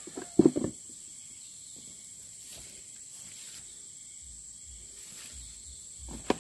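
A quick cluster of knocks about half a second in as a plastic stool is handled and set down on the ground, then a steady high-pitched insect drone, with one sharp click near the end.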